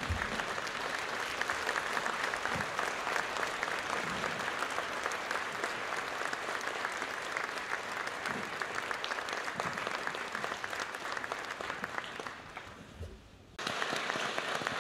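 Large hall audience applauding, dense steady clapping. It dies down about twelve seconds in, then starts again abruptly near the end.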